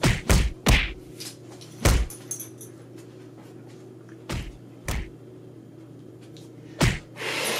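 Seven or so dull knocks and thumps at irregular intervals, three in quick succession at the start, then scattered ones about two, four and a half, five and seven seconds in, over a steady low hum.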